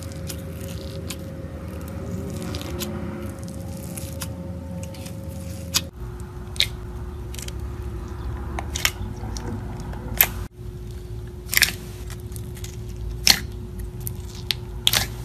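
Clear slime loaded with glitter and sequins being pressed and squeezed with fingers: soft squishing, with sharp pops every second or two in the second half, over a steady low hum.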